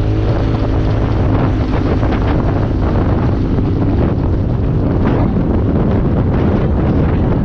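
UTV engine running steadily under way on a sandy trail, with wind buffeting the microphone and knocks and rattles from the vehicle over the bumps.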